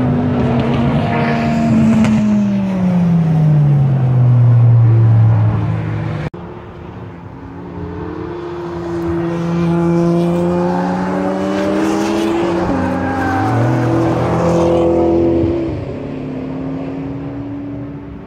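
Sports cars passing at speed on a race circuit. One engine note falls steadily in pitch as a car goes by, then the sound cuts suddenly about six seconds in. After the cut, engine notes hold steady, then drop and climb again as a car shifts gear and accelerates past.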